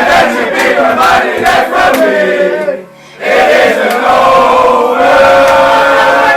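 A group of men chanting and singing loudly together, breaking off briefly about three seconds in and then starting up again.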